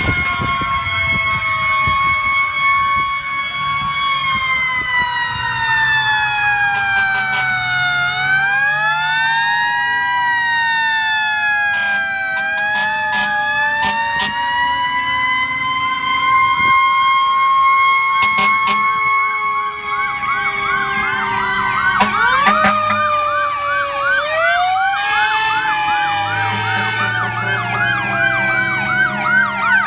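Several fire truck sirens sounding at once, their wailing pitches rising and falling and overlapping. From about two-thirds of the way through, one switches to a fast yelp. Low truck engines run underneath.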